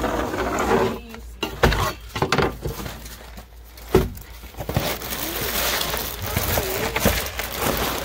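Food boxes and packages being handled and shifted on a plywood cabinet shelf: a few sharp knocks, then a stretch of rustling packaging.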